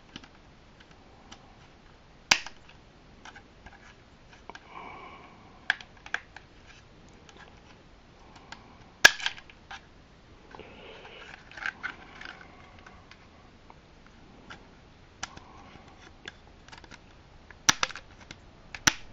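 Scattered small plastic clicks and taps as fingers press and pry at a Micro Galaxy Squadron toy starship, feeling for how to open its ramp, with a few louder sharp snaps about two seconds in, nine seconds in, and twice near the end.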